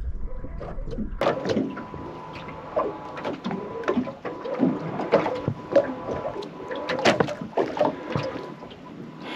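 Irregular knocks, clatter and water slaps on a small boat's hull, with a faint steady whine underneath. A low rumble stops about a second in.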